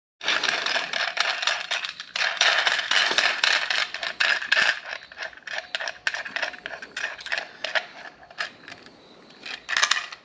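Hands handling electrical wire and small crimp connectors: a dense crackling rustle for about five seconds, then scattered light clicks and rattles, with a louder burst near the end.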